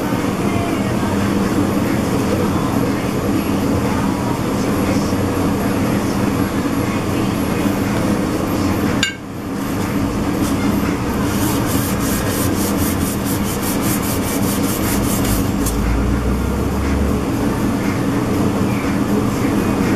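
Abrasive paper sanding a Cerakote-coated steel plate and then a blued gun barrel in an abrasion test: a steady gritty rubbing over a constant hum. It drops out briefly about nine seconds in, then carries on.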